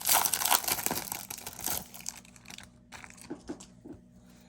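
Plastic foil wrapper of a trading-card pack crinkling as it is torn open and handled, loud for about the first two seconds, then a few faint ticks as the cards are handled.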